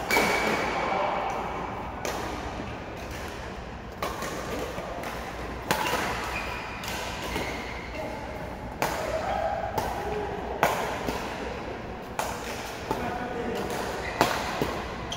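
Badminton rackets striking a shuttlecock in a doubles rally: sharp hits every second or two, with people's voices in the background.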